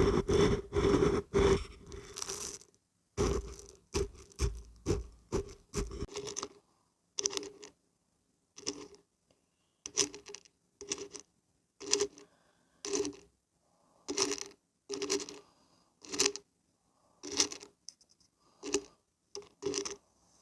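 Beans and barberries being shaken and rattling: quick continuous shaking for the first couple of seconds, then separate single shakes about once a second.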